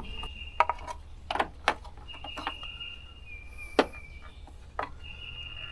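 Scattered light knocks and clicks from hands-on work with a cord and fittings, over a low steady hum. A faint high steady tone, like an insect trill, comes and goes three or four times.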